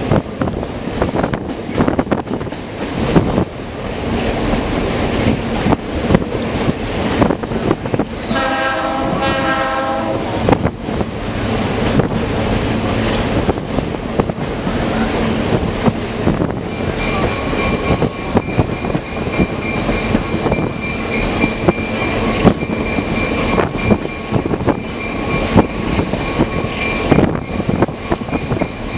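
Train in motion heard from on board: steady wheel-and-rail rumble with sharp clicks as the wheels cross rail joints. About a third of the way in comes a diesel locomotive's horn blast of about two seconds. From a little past halfway a steady high squeal from the wheels joins in and holds to the end.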